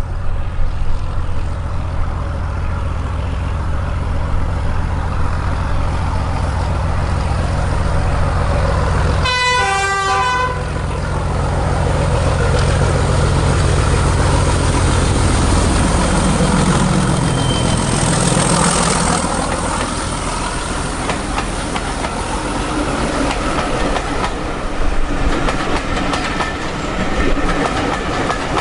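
Diesel locomotive hauling coaches, its engine running as it approaches, with a single horn blast of about a second roughly a third of the way through. The train grows louder and passes close near the end, with the coaches rumbling over the rails.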